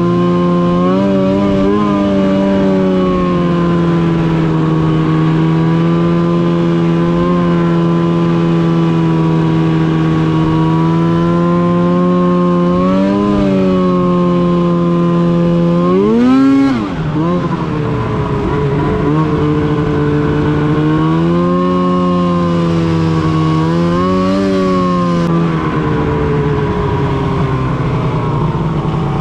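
Arctic Cat M8 snowmobile's 800 cc two-stroke twin running at a steady cruising pitch, rising and falling with the throttle. It revs up sharply and drops back a little past halfway, then rises again a few more times toward the end.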